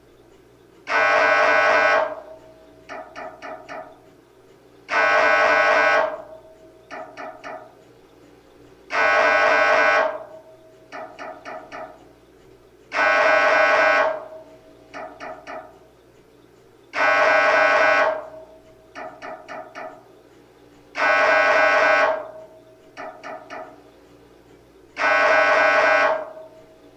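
MRI scanner's gradient coils pulsing through an imaging sequence: a loud tone about a second long, then a quick run of about four quieter pulses, the cycle repeating every four seconds.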